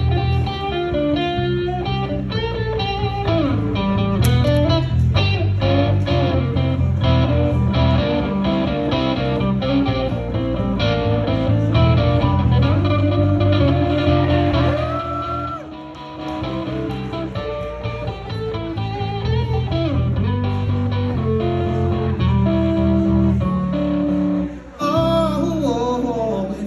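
Live electric blues band: a lead electric guitar solos with bent, sustained notes over bass, drums and keyboards. Near the end the band drops back and a man's singing voice comes in.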